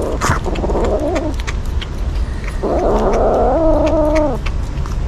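Kitten yowling and growling while eating fish: a short wavering call near the start, then a longer drawn-out one about two and a half seconds in, with scattered small clicks.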